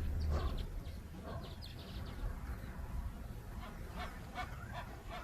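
Lions feeding at a carcass: scattered short growls and snarls over a low rumble.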